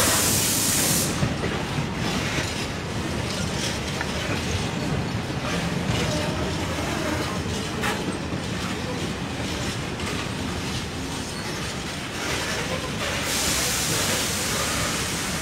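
Container wagons of a freight train rolling past close by: a steady rumble of steel wheels on rail with occasional sharp clicks over the rail joints, and a brighter hiss at the start and again near the end.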